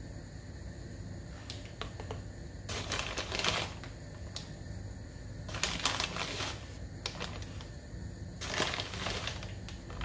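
Handling noise while powder is measured out: a few small clicks, then three short noisy bursts of about a second each, roughly three seconds apart, as the container and powder are handled.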